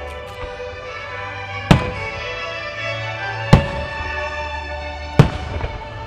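Orchestral music from the venue's loudspeakers, with three sharp firework bangs about a second and a half to two seconds apart over it.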